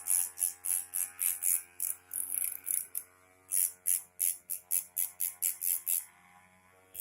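Background music: sustained tones under a fast, even, high-pitched percussive beat of about four hits a second that drops out briefly twice, over a faint steady low hum.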